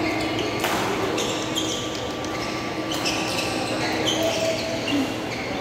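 Sports shoes squeaking in short chirps on an indoor badminton court floor as players move, with a sharp smack about half a second in.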